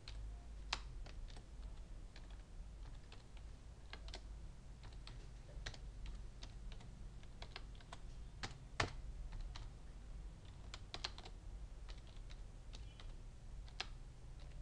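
Typing on a computer keyboard: irregular key clicks, with a couple of louder keystrokes, over a faint steady low hum.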